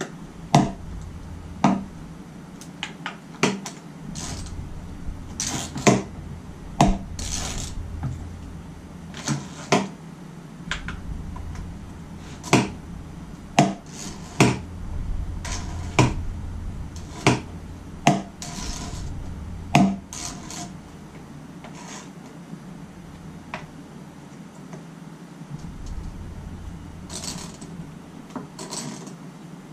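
Small hand wrench and socket clicking and clinking on the steel oil pan bolts of a Jeep 4.0 inline-six as they are run in and tightened: sharp metallic clicks about every second, some ringing briefly, now and then a quick run of clicks.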